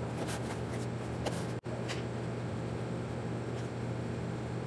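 Steady low mechanical room hum, with a few faint, short rustles of hands handling and pressing EVA foam scales, and a momentary dropout about a second and a half in.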